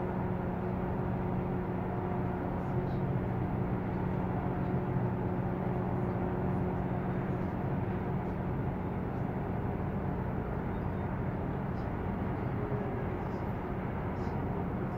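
Steady low drone of ship engines, with a few level humming tones over an even rumble.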